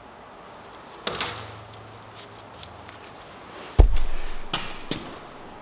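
Handling noises on a steel welding table: a sharp clatter about a second in, then a heavy thud against the steel top near four seconds with a low ring after it, followed by two quicker knocks and paper rustling as the pen is set down and the paper template picked up.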